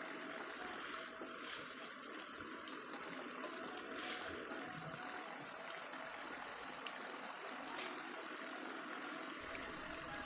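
Sardine and tomato sauce simmering in an aluminium wok: a steady, quiet bubbling hiss with a few faint pops. The sauce is being brought to the boil.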